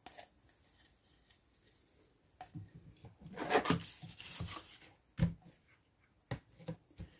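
Cardstock paper rustling and rubbing as a folded pocket is pressed flat by hand on a wooden table, with a longer rub about three and a half seconds in. Near the end come a few light taps as a clear acrylic ruler is set down on the paper.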